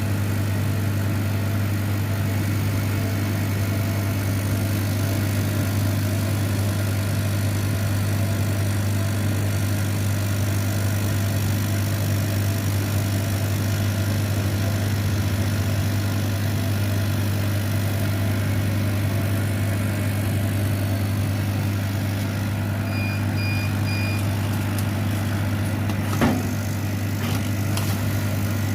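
CO2 laser cutting machine running a cutting job, with a steady low machine hum from its blower and pumps. About three-quarters of the way through come three short electronic beeps, then a single sharp click.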